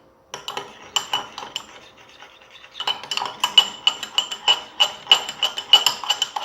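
A spoon stirring a slime mixture in a bowl, clinking against its sides in repeated ringing taps. The taps are sparse at first, then come faster and louder from about three seconds in.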